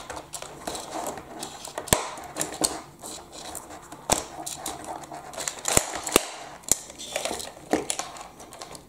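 Hard plastic parts of a toy telehandler being handled as the body is unclipped and lifted off its chassis: several sharp clicks and knocks, with scuffling handling noise between them.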